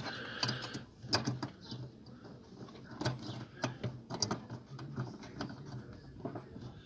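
Irregular small plastic clicks and knocks as an H7 halogen bulb and fingers are worked blind against the back of a BMW E60 headlight housing, feeling for the socket opening. A faint low hum sits underneath.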